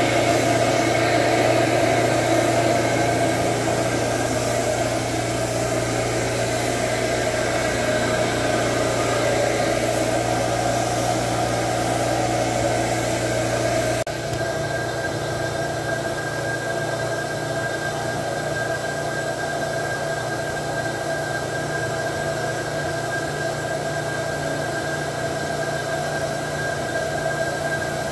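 Carpet shampoo extractor running steadily, its vacuum motor and pump making a loud hissing drone with a low hum as the wand is drawn over the carpet. About halfway through the hum shifts slightly higher and gets a little quieter.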